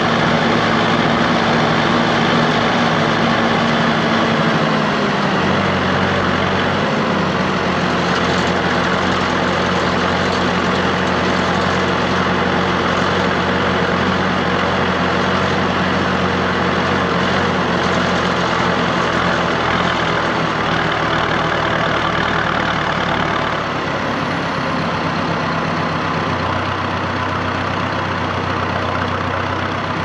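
Massey Ferguson 4355 tractor's diesel engine running while driving across a field, heard from the bonnet. Its note steps down about five seconds in and changes pitch a few more times as the engine speed varies.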